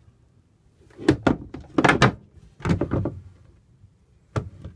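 Hinged wooden lids of a sailboat's galley-counter storage lockers being lifted and set down, giving a series of short wooden knocks and clunks, with a sharp one near the end.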